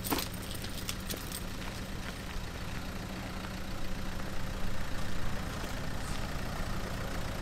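Dacia Duster's engine running steadily at low revs as the SUV crawls slowly over a rutted dirt track, with a few sharp crunching clicks in the first second or so.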